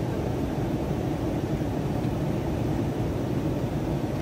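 Steady cabin noise of a Boeing 737 in flight: an even, low rush of engines and airflow, with no change in pitch or level.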